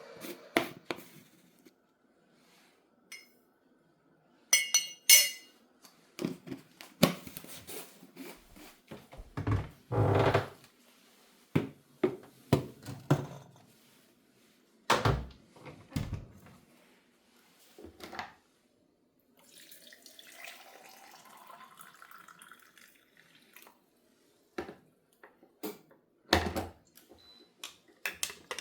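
Kitchen handling sounds: a scattered series of knocks, thuds and clinks of dishes and utensils being set down and moved, with a few seconds of tap water running in the second half.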